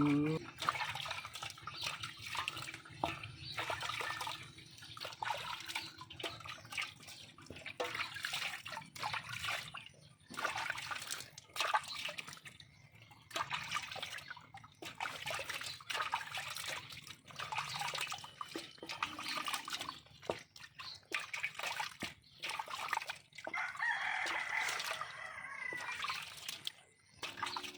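Water splashing and pouring in irregular bursts while a dog is washed.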